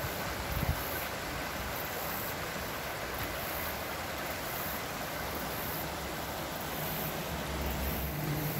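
Shallow creek water rushing over rocks in a riffle, a steady even rush, with a brief low thump just under a second in.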